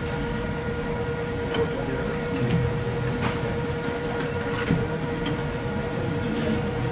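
Restaurant room noise: a steady hum of fixed tones over a low rumble, with faint background voices and one sharp click about three seconds in.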